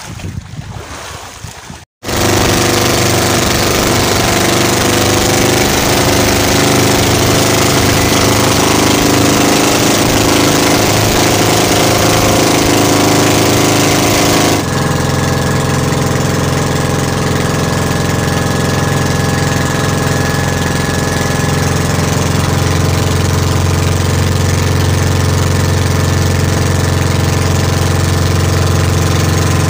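Outrigger fishing boat's engine running steadily under way, loud, with a hiss of wind and water over it. It starts suddenly after a brief dropout about two seconds in, and about halfway its tone abruptly shifts to a lower, steadier drone.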